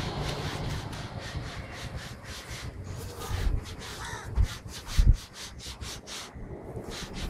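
Crows cawing in a string of short, harsh calls, with two dull thumps about four and a half and five seconds in.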